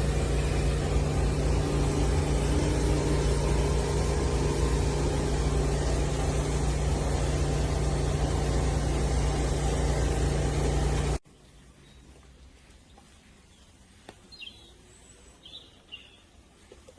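Loud, steady machine-like droning noise with a low hum that cuts off suddenly about eleven seconds in, leaving a faint background with a few short, high bird-like chirps.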